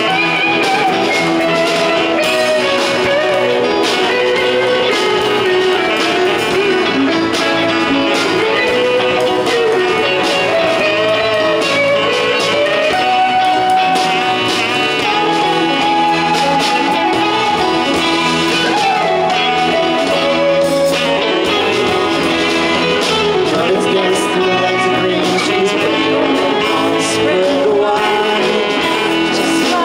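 Live amplified band music: electric guitars and bass playing over a steady beat, with a gliding melodic lead line on top.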